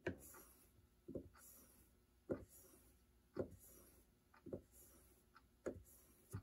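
A steel jointer knife being drawn backwards across a leather strop loaded with honing compound, making faint rubbing strokes about once a second. This is the final stropping stage of sharpening, taking the last fine burr off to leave a razor edge.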